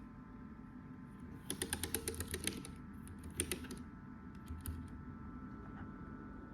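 Keychron K7 low-profile mechanical keyboard being typed on: a quick run of about ten keystrokes starting about a second and a half in, then a few scattered key presses, over a steady faint hum.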